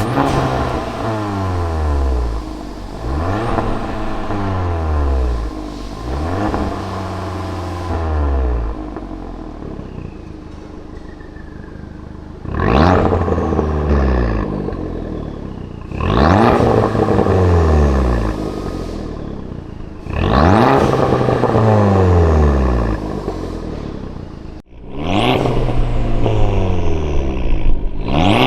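Fiat Abarth 695's turbocharged 1.4-litre four-cylinder engine revved about seven times through an aftermarket valvetronic catback exhaust and sport downpipe. Each rev climbs quickly and falls back more slowly. The first three are shorter, and the last four are louder and longer.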